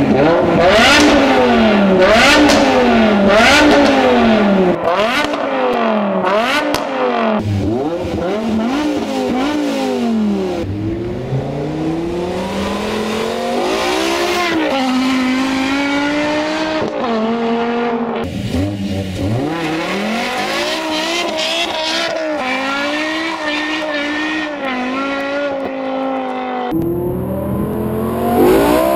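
BMW M6's V10 through an Eisenmann race exhaust and straight pipes, very loud: a run of quick free revs, each snapping up and dropping straight back, then the car pulling away and accelerating hard through several upshifts.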